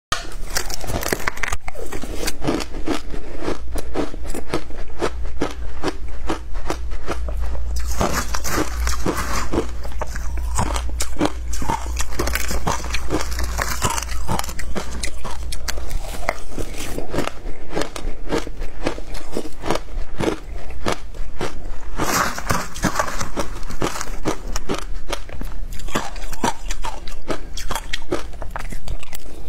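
Shaved ice topped with passion fruit pulp and seeds being bitten and chewed close to the microphone: a dense, continuous run of crunches.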